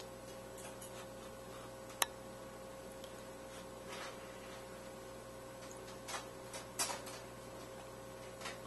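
Faint steady electrical hum with a few soft clicks and mouth sounds as a forkful of scalloped potatoes is taken into the mouth and chewed; one sharp click about two seconds in.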